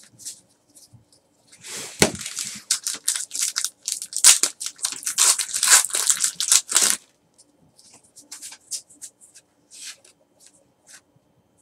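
A foil trading-card pack being torn open and crinkled: a dense crackling rustle from about two seconds in until about seven seconds. After it, faint flicks as the cards are thumbed through in the hand.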